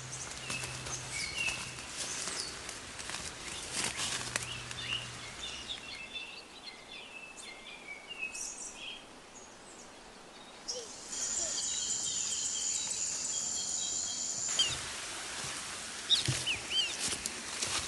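Forest sounds: small birds chirping and calling at scattered moments. About eleven seconds in, a steady high-pitched insect buzz starts, a few short rustles stand out, and faint background noise runs throughout.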